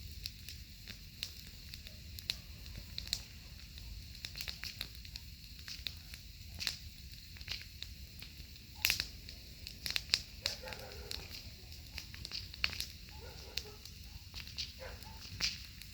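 Wood campfire crackling: a steady run of irregular sharp pops and snaps, the loudest two coming about nine and ten seconds in.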